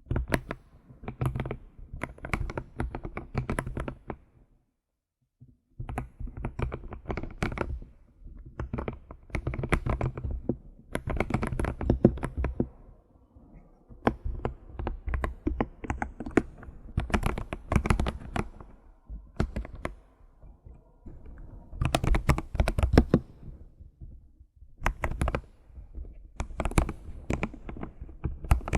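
Keyboard keys tapped rapidly in bursts of typing, with a full stop of about a second shortly after the start and a few shorter lulls later.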